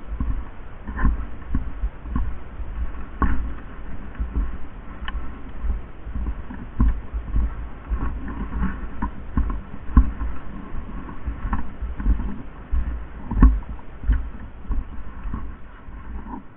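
Irregular low thumps and knocks, about one or two a second, over a steady rumble: handling and movement noise.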